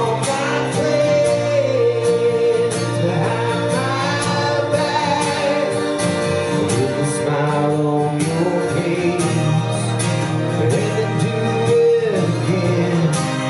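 Harmonica solo over a strummed acoustic guitar, the harmonica playing bending, sliding notes.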